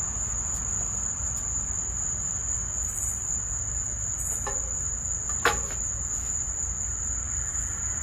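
Crickets trilling steadily in one continuous high tone, over a low rumble. A single sharp click comes about five and a half seconds in.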